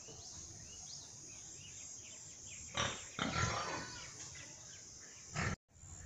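Pigs in their pens grunting and calling, with loud cries about three seconds in and a short one just before the end.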